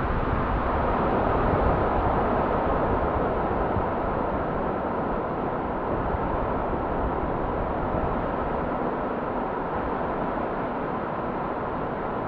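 Steady rush of ocean surf breaking along the beach, with wind buffeting the microphone, the buffeting easing in the second half.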